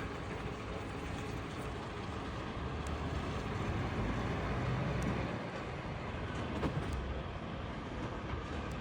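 Heavy vehicle running with a steady low rumble, and a short knock about two-thirds of the way through.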